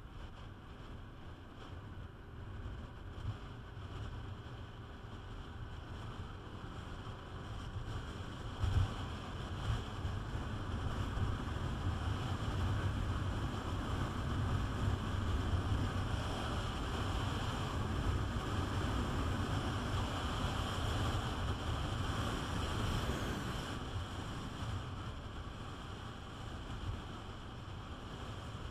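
Wind buffeting the microphone while riding a Peugeot Metropolis 400 three-wheeled scooter, over the steady drone of its engine and tyres. The rush swells from about eight seconds in, stays loud for most of the middle, and eases near the end.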